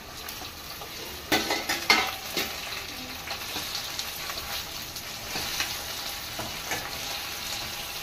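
Taro root pieces and onions sizzling in oil in a stainless steel kadai while a metal slotted spoon stirs them, scraping against the pan. A few sharp metal clanks come between about one and two and a half seconds in, and lighter scrapes follow every second or so.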